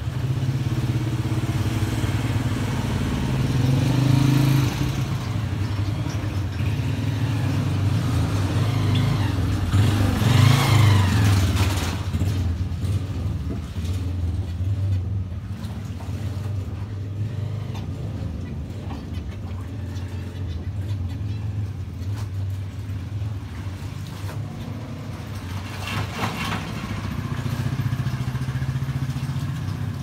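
Steady low rumble of motor vehicle engines, swelling loudest with a rising and falling engine note about ten seconds in, as a vehicle passes.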